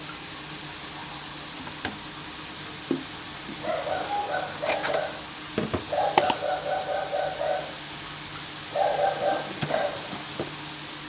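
Pork and liver strips sizzling in a frying pan with a steady hiss. A metal spatula clinks against the pan a few times and scrapes through the meat in three short bouts of stirring.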